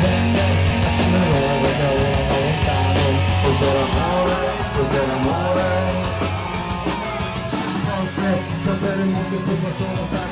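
Live rock band playing: electric guitars, bass and drums through a concert PA.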